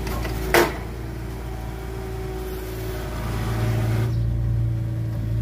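Mini excavator's diesel engine running steadily while it works, with one sharp knock about half a second in; the engine note grows deeper and a little louder about four seconds in.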